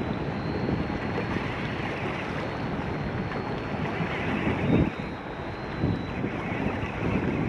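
Wind rumbling across the microphone aboard a small fishing boat, with waves on open water, and one short louder bump about five seconds in.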